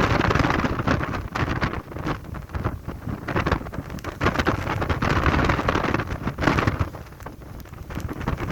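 Strong gusty wind buffeting the microphone: a loud, rough rumbling rush full of crackles that swells and dips with each gust and eases for a moment near the end.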